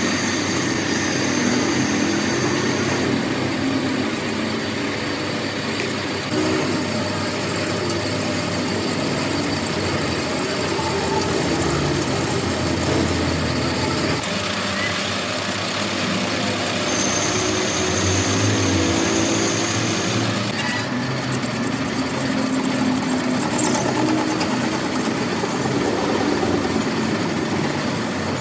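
Industrial machinery running steadily, a dense mechanical din with no distinct blows. A thin high whine sounds for the first few seconds and comes back for a few seconds past the middle.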